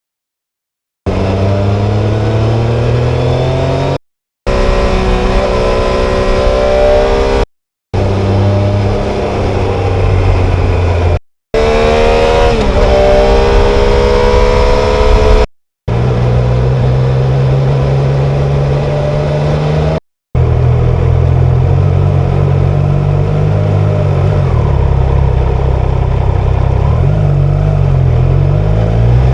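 Triumph Tiger Sport 660's inline-three engine and exhaust running under way, in several short stretches cut apart by brief dead silences. In each stretch the engine note climbs in pitch as it revs up, highest about twelve to fifteen seconds in. The last stretch settles into steadier running with small rises and falls.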